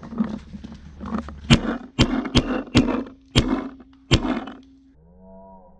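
Tippmann A5 semi-automatic paintball marker firing six sharp shots at an uneven pace over about three seconds, with dry leaves rustling underfoot.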